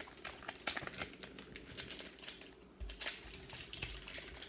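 1998-99 Finest basketball cards being handled and flipped through one by one, a string of small irregular clicks and card snaps.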